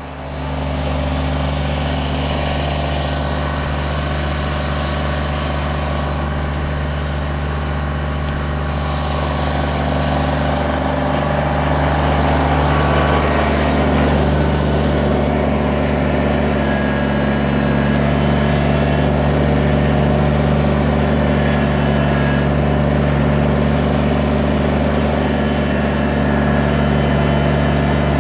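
Kubota BX23S compact tractor's three-cylinder diesel engine running steadily, with the revs coming up in the first second and a little more about twelve seconds in.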